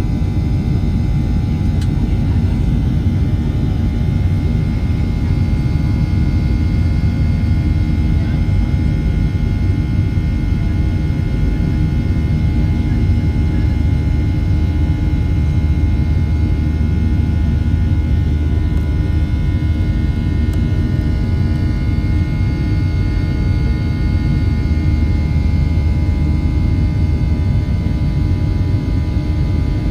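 Steady cabin noise of a Boeing 737-700 in flight: a loud low rumble from its CFM56-7 jet engines and the airflow, with several steady tones held over it.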